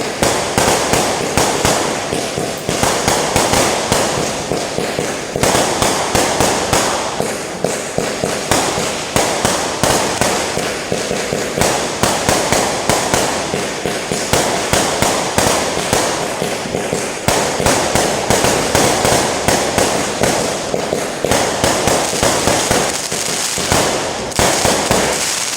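Chinese New Year firecrackers and fireworks going off in a dense, unbroken string of sharp cracks, many a second, with no let-up.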